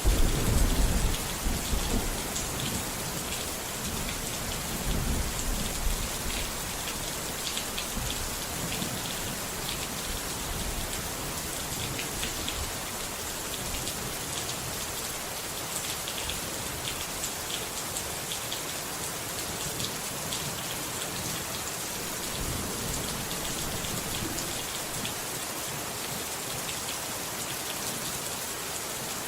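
Steady rain falling, a dense patter with scattered drop ticks. A low thunder rumble comes at the very start and a weaker one about five seconds in.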